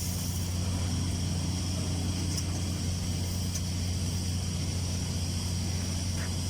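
Steady low drone of running machinery, unchanging throughout, with a faint high hiss over it.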